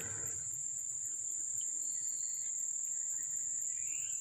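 Steady, high-pitched insect chorus: a continuous trill that does not change.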